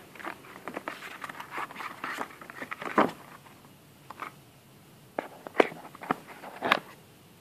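Cardboard box and paper packaging of a Mac mini handled by hand: rustling and scraping, then a few sharper knocks and clicks, the loudest about three seconds in and near the end.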